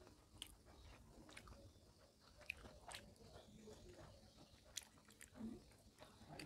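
Faint, close-miked chewing and wet mouth clicks of a person eating rice by hand, with scattered short sharp clicks.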